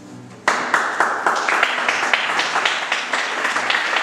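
The last notes of an acoustic guitar fade, and about half a second in an audience starts applauding, many hands clapping in a dense, steady patter.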